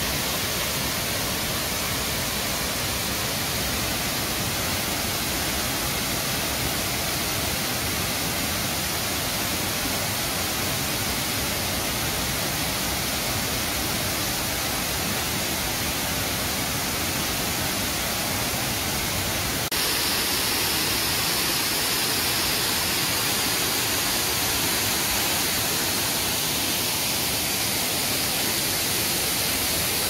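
Waterfalls rushing into a rock pool: a steady, even roar of falling water. It turns slightly louder and hissier about twenty seconds in.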